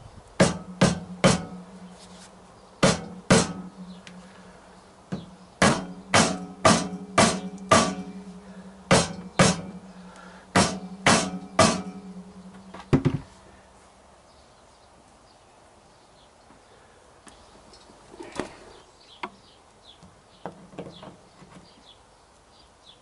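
Rubber mallet striking the steering stem of a motorcycle frame to bed in freshly fitted steering head bearings: about sixteen sharp blows in quick groups of two to five, each leaving a low ringing hum. Then a few light metal clinks as the top yoke is set in place.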